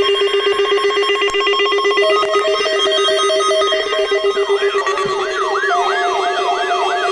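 Electronic emergency alert tones sounding together for an Amber Alert. A steady pulsing tone is joined by more steady tones about two seconds in. About halfway through, a siren-like sweep starts, rising and falling about three times a second.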